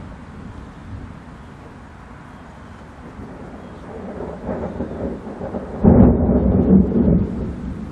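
Thunder: a low rumble builds, then a sudden loud clap about six seconds in rolls on and fades over the next second and a half.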